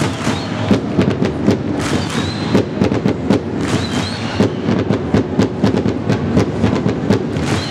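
Ice hockey fan crowd in the stands chanting and clapping in rhythm, with sharp beats recurring a few times a second. Short high whistles cut through a few times.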